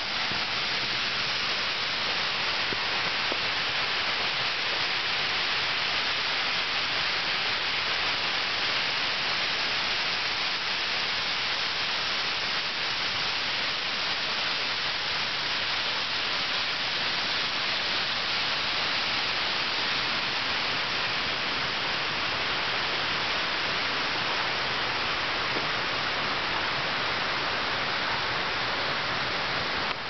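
Steady rushing of a mountain river: an even, unbroken hiss, strongest in the upper range.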